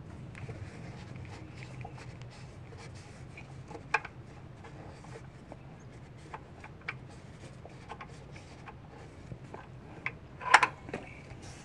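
Shop rag rubbing and wiping inside a throttle body bore, cleaning out carbon gunk, with scattered light clicks. There is a sharper click about four seconds in and a louder cluster of knocks near the end.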